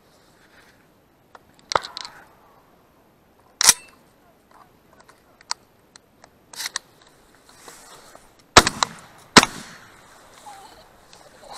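Shotgun firing at flying ducks: a few sharp reports in the first part, then two loud shots a little under a second apart near the end, each with a short ringing tail.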